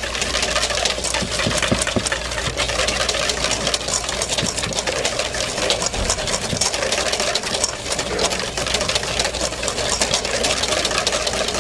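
Wire balloon whisk beating cream by hand in a stainless steel bowl: a fast, steady clatter of the wires scraping and tapping against the metal.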